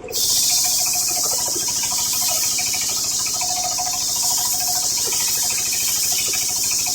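Homemade circular saw cutting coconut-palm wood: a loud, steady high hiss sets in suddenly as the blade enters the wood and holds, over the steady running of the rig's motor.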